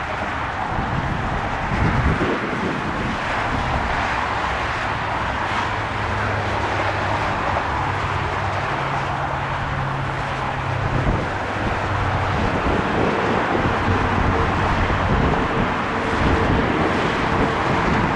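Mitsubishi CRJ-900's twin rear-mounted GE CF34 turbofans at climb power, a steady rushing jet noise that grows a little louder as the airliner comes overhead. A low hum is heard near the middle, and a thin steady tone comes in over the last few seconds.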